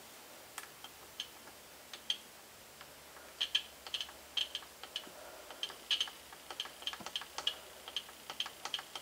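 Scooter's faulty electric horn giving only faint short clicks instead of a blast, a few at first and then two or three a second from about halfway in. The horn is getting power but not sounding.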